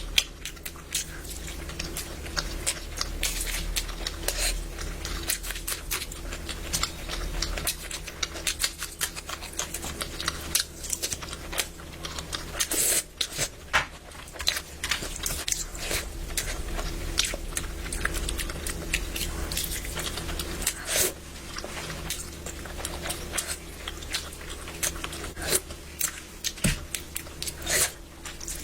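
Close-miked eating: a person chewing and biting food, making a steady stream of small mouth clicks.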